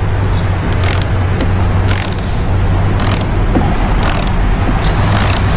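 Steady low mechanical hum with a short hiss repeating about once a second.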